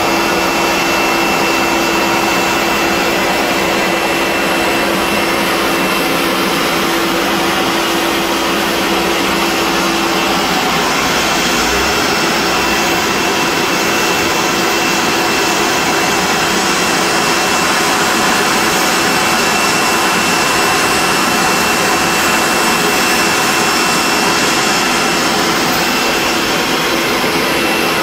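Aircraft turbine running steadily on the apron: a loud, even rush with a thin high whine over it, and a lower hum that weakens about ten seconds in.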